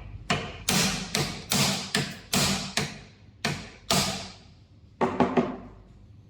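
Hammer tapping a screwdriver held against the shaft sleeve of a band sealing machine: about a dozen sharp knocks with a brief ring, roughly two a second, ending in three quick ones about five seconds in. The taps are nudging an off-centre shaft back to the middle, the cause of the machine's abnormal running noise.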